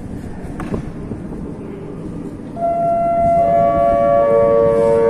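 Metro train arriving, its electric traction drive whining in several held tones that come in one after another, each lower than the last as it brakes, over a steady rumble that grows louder about two and a half seconds in.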